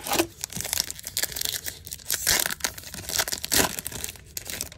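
The plastic wrapper of a 2022 Topps baseball card pack being crinkled and torn open by hand: irregular crackling, with the loudest rips a little over two seconds in and again about three and a half seconds in.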